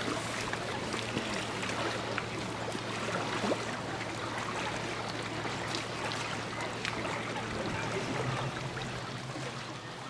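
Lake water lapping and trickling at the edge of a swan's stick nest, a steady wash dotted with small ticks and faint short high sounds, over a low hum.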